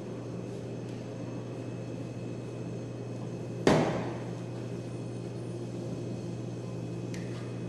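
A kitchen knife set down on the worktable: one sharp knock about four seconds in, over a steady low hum.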